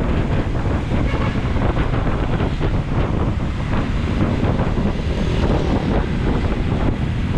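Steady wind noise rushing over the camera microphone of a Honda ADV160 scooter riding at about 40 km/h, a heavy low rumble that masks the engine.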